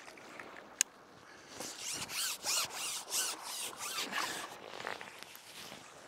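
A landing net with a barbel in it being drawn in hand over hand: a sharp click a little under a second in, then a run of quick rasping strokes, about three a second, as the pole handle scrapes through the hands.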